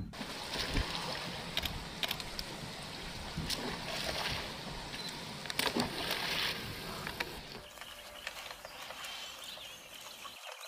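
Water sloshing and splashing in a steady hiss, with scattered short knocks; near the end it gives way to a quieter, thinner background noise.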